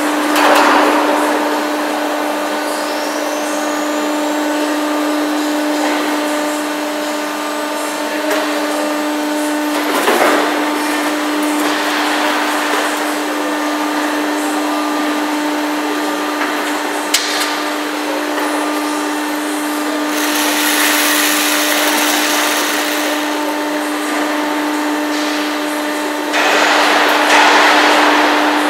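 Plastic injection moulding machine running on trial, its hydraulic pump motor giving a steady hum. Several louder bursts of hiss and clatter break in, a high hiss lasting a few seconds past the middle and the loudest burst near the end.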